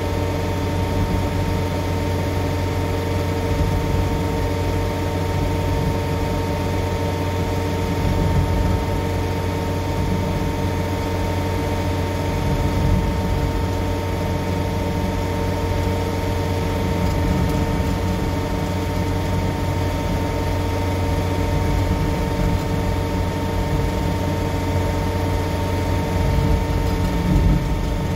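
The diesel engine of a John Deere 317G compact track loader runs steadily, driving a Fecon Stumpex hydraulic stump grinder that turns and bores down into a tree stump.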